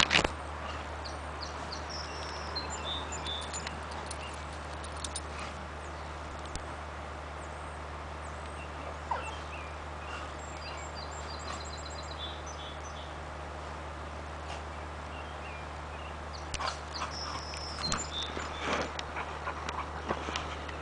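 A border collie and a cocker spaniel play-wrestling: light scuffling with short knocks, busiest and loudest in the last few seconds, over a steady outdoor hiss. Small birds chirp in short bursts in the background.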